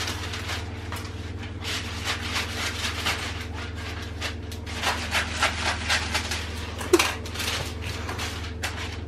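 Baking paper crinkling and rustling as it is unrolled, folded and torn into strips for lining a cake tin, with a sharp louder snap about seven seconds in. A steady low hum runs underneath.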